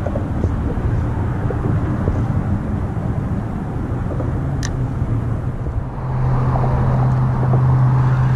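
Low, steady engine rumble whose hum grows louder and steadier about six seconds in, with one sharp click about halfway through.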